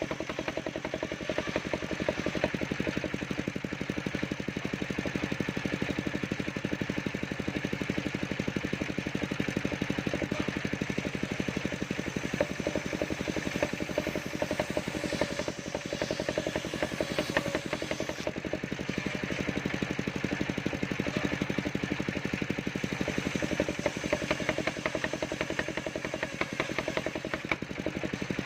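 Engine of a portable circular-saw sawmill running steadily, with a fast, even pulsing beat.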